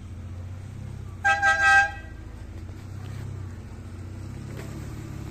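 An off-road 4x4's engine running with a steady low drone as it drives through mud, with a car horn giving a quick burst of about three beeps about a second in, lasting under a second.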